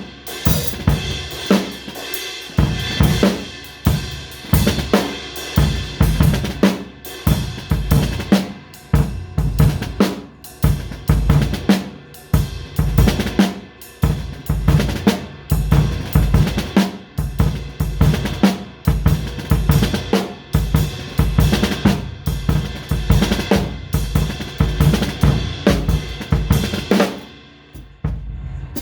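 Drum kit played in a fast, busy groove, with kick drum, snare and cymbals or hi-hat. It stops about a second before the end.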